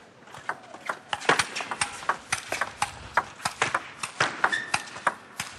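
Table tennis ball clicking off the bats and the table in a fast rally, with quick irregular sharp clicks beginning about half a second in.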